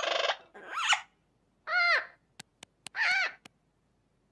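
Macaw calling: a harsh squawk that breaks off about half a second in, followed by three short pitched calls that rise and fall. Several sharp clicks are spread among them in the second half.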